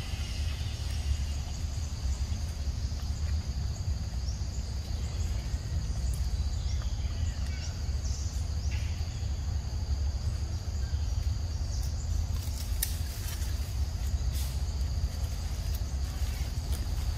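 Outdoor forest ambience: a steady low rumble with faint, steady high-pitched tones above it, and a few sharp clicks in the second half.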